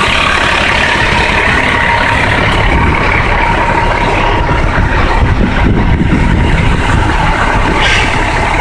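Fire engine's diesel engine idling steadily, heard up close alongside the truck.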